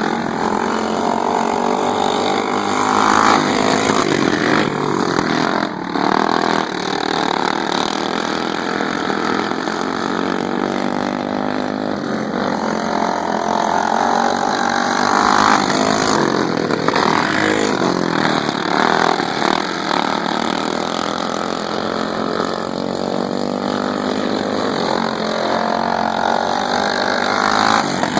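Racing lawn mower engine running hard, its pitch rising and falling with the throttle and growing louder a few times, around 4, 15 and 27 seconds in.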